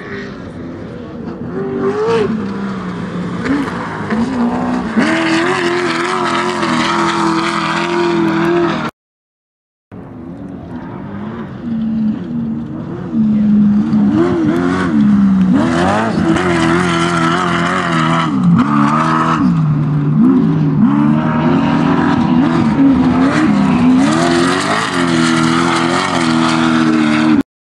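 Off-road desert race vehicles driving past under hard throttle, the engine pitch repeatedly rising and falling as they rev, shift and lift. The sound drops out completely for about a second partway through.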